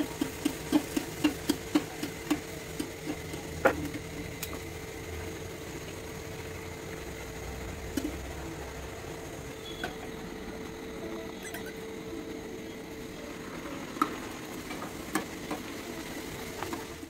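Kachoris deep-frying in hot oil in a kadai, a steady sizzle. Over the first few seconds a quick run of light taps comes at about four a second, with a few single clinks later, from the metal spatula working in the pan.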